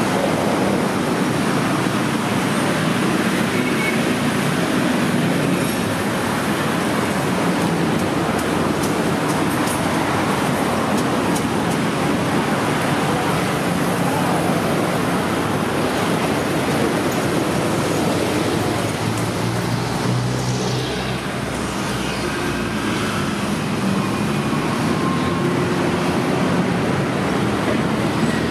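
Busy city road traffic: a steady wash of passing cars and motorbikes, with a lower engine hum from a heavier vehicle swelling about twenty seconds in.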